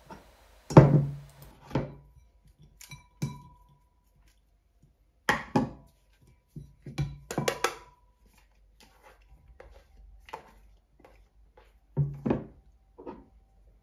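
Knocks and clinks of kitchenware being handled on a wooden table: a metal grater top lifted off a plastic container and the container tapped against a ceramic bowl as shredded zucchini is emptied into it. About a dozen separate knocks, a few with a brief metallic ring, the loudest about a second in.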